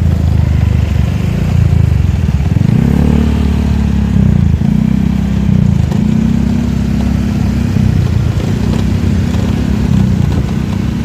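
Motorcycle engine running while riding, its speed rising and falling a few times.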